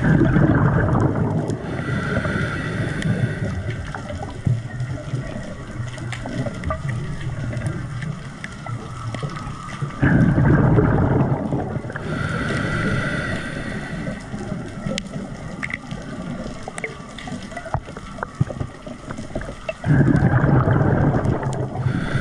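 Underwater bubbling and gurgling from a diver's breathing, in three loud surges about ten seconds apart, each followed by a softer hiss, with steady water noise in between.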